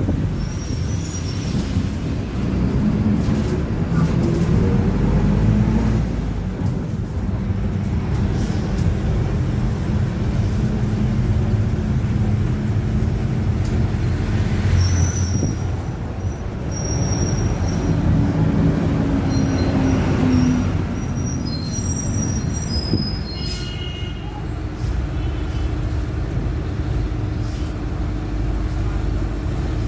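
Mercedes-Benz OF-1721 BlueTec5 city bus under way, its diesel engine and drivetrain running with the differential growling. Brief high squeals come and go in the second half.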